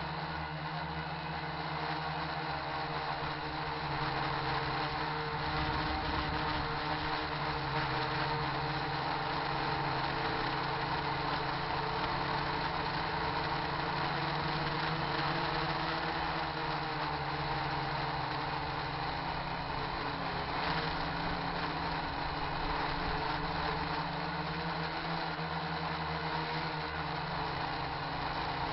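RC quadcopter's electric motors and propellers whirring steadily, picked up by the camera riding on it, with the pitch shifting a little as the throttle changes.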